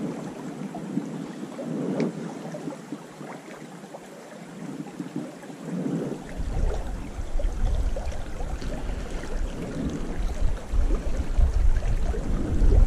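Small creek flowing, with a low rumble of wind buffeting the microphone from about halfway through.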